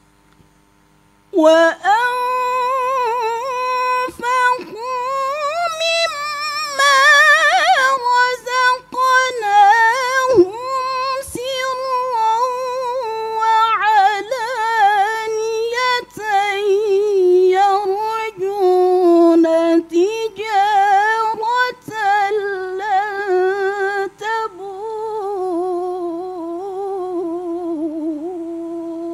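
A woman reciting the Quran in the melodic tilawah style, singing long ornamented phrases with a wavering vibrato and short breaths between them. She comes in about a second and a half in, after a pause, and her line sits lower in the second half before ending on a long held note.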